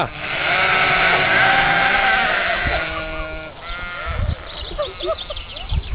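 A large flock of sheep bleating together in a loud mass chorus that thins out after about three and a half seconds into scattered single bleats.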